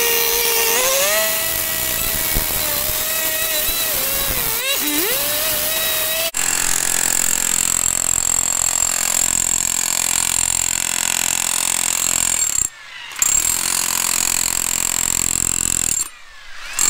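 A cut-off saw running at high revs as it cuts into a concrete footing, its pitch wavering and sagging under load about four to five seconds in. It stops abruptly after about six seconds and a demolition hammer takes over, breaking up the concrete steadily, with two brief pauses near the end.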